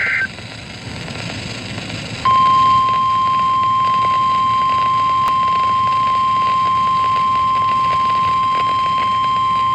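NOAA Weather Radio emergency alert: the last moment of a SAME header data burst, a couple of seconds of radio hiss, then the 1050 Hz warning alarm tone starting about two seconds in, a single loud, steady beep that marks a warning about to be read.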